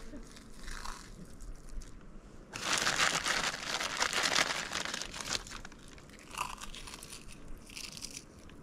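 A plastic snack bag crinkling as crunchy Chex Mix is shaken out of it, with a loud stretch of rustling and crunching in the middle lasting a couple of seconds.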